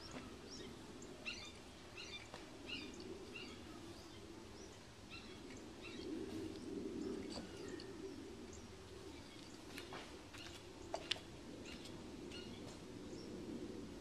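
Small birds chirping, short high chirps scattered irregularly over faint low background noise, with a couple of sharp clicks about ten and eleven seconds in.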